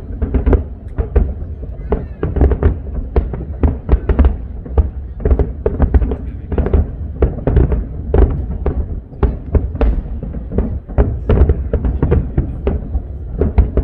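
Fireworks display: a dense, continuous run of shell bursts, several a second, each a sharp bang with a deep boom beneath.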